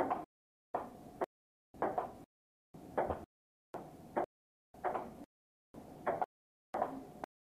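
Table tennis rally in a small room, heard through audio that cuts in and out: about half a second of sound, then half a second of dead silence, repeating roughly once a second. A few sharp knocks of the ball on paddle and table come through in the pieces.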